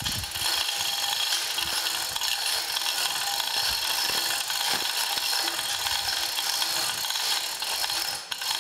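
Hand chain hoist being hauled to lift a heavy load: the hand chain rattles through the hoist while its ratchet clicks, steadily throughout.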